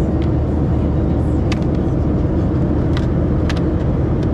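Steady low roar of a Boeing 737-700's cabin in flight, from engine and airflow noise, with a few faint light clicks.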